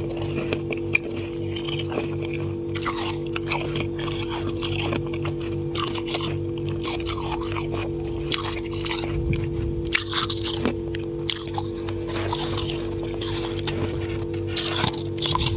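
Frost scraped from a freezer being bitten and chewed straight off with the mouth: irregular crunching and crackling bites, over a steady low hum.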